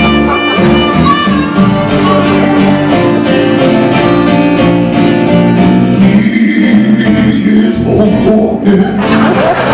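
A man singing live while strumming his own acoustic guitar, a solo singer-songwriter performance.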